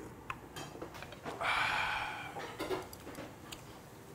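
A man sipping hot spicy ramen broth from a spoon. There are small clicks of mouth and spoon, and a long breathy rush of air about a second and a half in.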